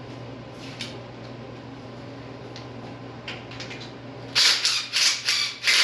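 A low steady hum with a few faint clicks, then, about four seconds in, a quick run of loud rasping scrape strokes, about three a second.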